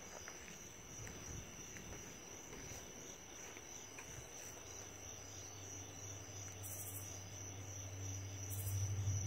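Crickets chirping in a steady high trill. A low hum rises in the last few seconds.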